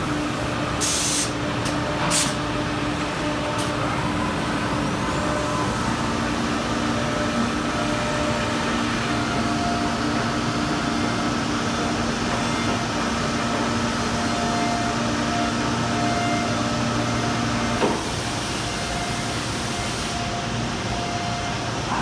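Homag BOF 311 CNC router/boring machine running: a steady mechanical hum carrying several steady tones that come and go, with two short bursts of compressed-air hiss about one and two seconds in. Near the end one tone stops with a light knock.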